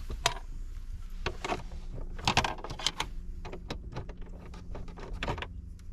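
Irregular light clicks and rattles of screws being worked out of a plastic dashboard panel and handled, over a steady low hum.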